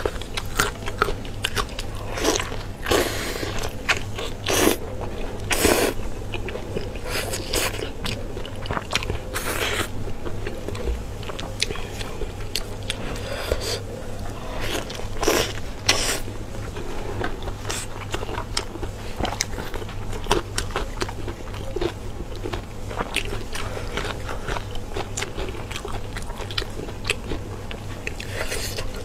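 Close-miked chewing and biting of sauce-glazed tripe-wrapped lamb, full of wet smacks and sharp clicks at an irregular pace, over a steady low hum.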